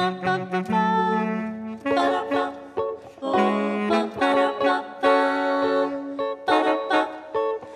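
Saxophone playing a melodic line over archtop electric guitar chords and bass notes, an instrumental passage between sung verses of a jazz-tinged song.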